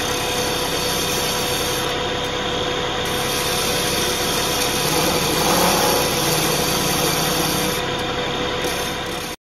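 Wood lathe running with a gouge making light bevel-rubbing cuts on the spinning wood, a steady hiss of cutting over the motor's hum. It cuts off suddenly near the end.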